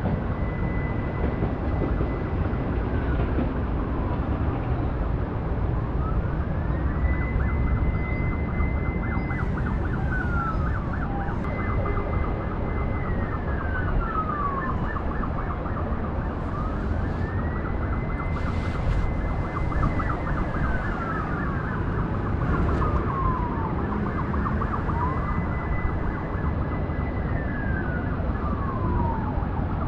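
Emergency vehicle siren, a fire engine's, sounding a slow wail from the street below: each cycle rises, holds a high note for a couple of seconds, then falls, repeating every several seconds. It sits over a steady low rumble.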